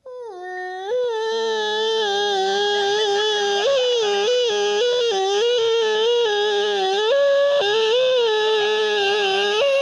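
A man's voice making one long wordless warbling tone into a microphone cupped in his hands. Its pitch steps up and down without a break. It is a comic imitation of the sound a heckler's surgically tightened neck makes when she speaks.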